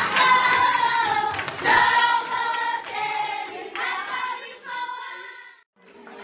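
A group of children singing together in short phrases, with a few women's voices among them. The singing breaks off briefly near the end.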